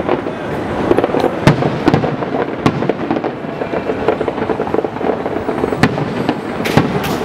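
Fireworks display going off: about a dozen sharp bangs at irregular intervals over a continuous din of further bursts and crackle.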